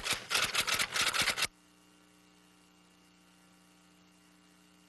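A rapid, irregular run of sharp clicks for about a second and a half, then only a faint steady hum.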